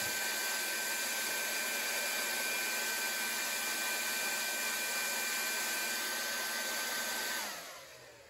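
Thunderoos ESC cooling fan spinning at full speed: a steady high whine over a strong rush of air. About seven and a half seconds in, power is cut and it winds down, the whine falling in pitch as it fades.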